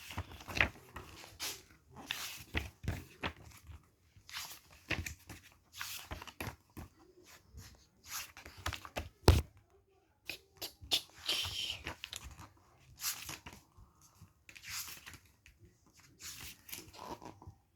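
Book pages rustling and being handled: a string of irregular short paper rustles, brushes and taps, like pages being turned.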